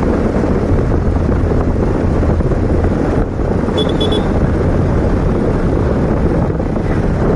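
Motorcycle engine running at riding speed, mixed with wind rushing over the microphone. A quick run of high-pitched beeps sounds briefly about four seconds in.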